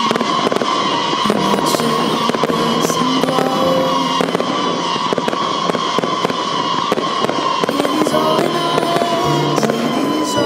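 Aerial fireworks bursting in a quick, irregular string of bangs and crackles, over loud music with held notes.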